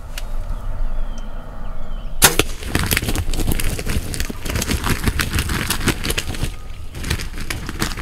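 A single sharp shot about two seconds in, then a shot wild turkey gobbler flopping on the ground, its wings beating in a rapid, irregular thrashing for several seconds before easing off near the end.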